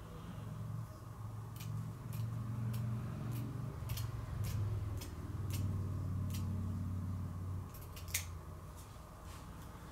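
Scissors snipping through tent fabric, a string of sharp irregular snips as a cut is worked along a line, over a low hum that stops shortly before the snipping ends.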